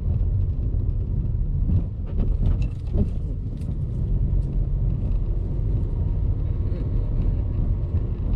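Car driving, a steady low rumble of engine and road noise heard from inside the cabin, with a few light knocks.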